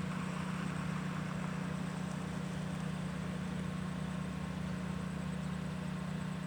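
A steady, unchanging low hum like a distant idling engine or machine, over a faint background hiss.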